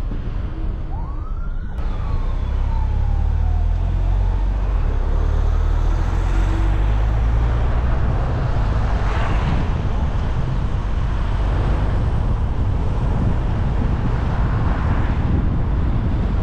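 Steady low rumble of a car driving through city streets, with an emergency-vehicle siren sounding one wail that rises and falls about a second in.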